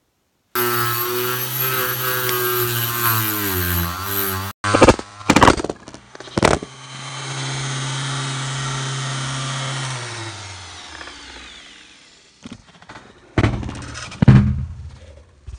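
Parkside PGS 500 A1 electric die grinder running with a whine that sags in pitch about four seconds in. Sharp knocks and clatter follow as the camera support falls. The motor then runs steadily and winds down to a stop about ten to twelve seconds in, with a few more knocks near the end.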